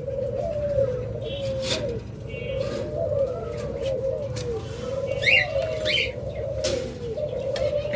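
Many doves cooing at once, their overlapping coos running on without a break, with a few brief higher chirps from other cage birds about five and six seconds in.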